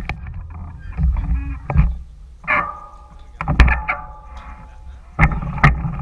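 Mountain bike rattling and knocking as it moves over rough dirt trail: sharp clunks every second or so over a low rumble.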